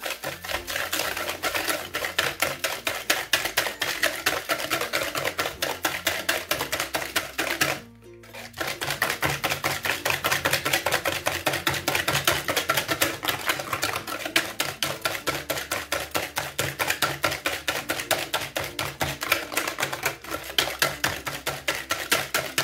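Wire whisk beating eggs and sugar by hand in a plastic bowl: rapid clicking strokes of the wires against the bowl, several a second, with a short pause about eight seconds in.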